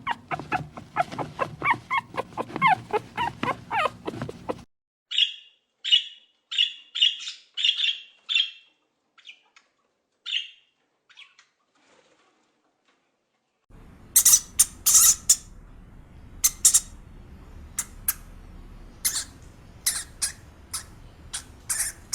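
A puppy whimpering and yipping in rapid high calls for the first few seconds. Then a run of about a dozen short high chirps. Then, after a pause of a few seconds, a series of sharp, loud squawks.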